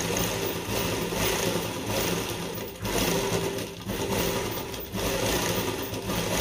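Sewing machine running steadily as it stitches lace trim onto a velvet neckline, stopping for a moment a few times around the middle.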